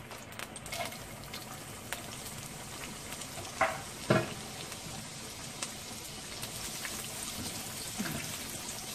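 Hot oil sizzling steadily in a non-stick wok. Two short, louder knocks come about three and a half and four seconds in, as julienned carrots go into the oil. The carrots then sizzle and are stirred with a spatula near the end.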